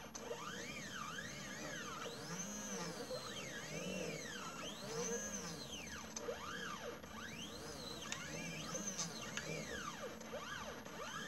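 Stepper motors of a mini CNC laser engraver whining as they drive the laser head along the pattern, each move a tone that rises and falls again as the motor speeds up and slows down, over and over.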